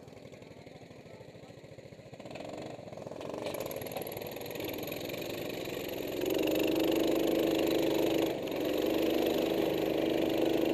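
Go-kart engine heard on board, growing louder over the first few seconds and then running at high, steady revs, with a brief drop just past the eight-second mark.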